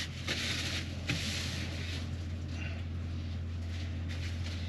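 A steady low hum, with two short bursts of rustling in the first two seconds as something is handled in the caravan kitchen.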